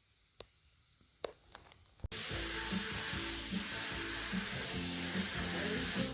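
A few faint clicks, then about two seconds in a loud, steady hiss of paint being sprayed starts abruptly, with background music underneath.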